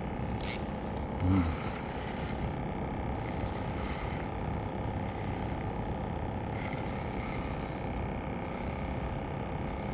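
Steady wind and sea noise in the open air, with one sharp click about half a second in.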